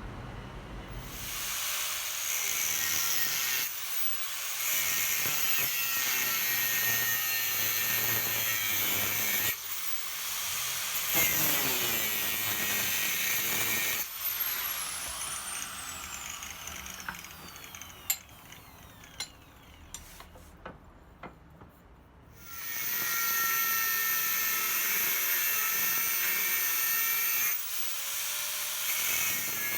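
Electric power tool running in long stretches. About halfway it stops, and its whine falls steadily in pitch as it spins down. A few light clicks follow, then it runs again for the last several seconds.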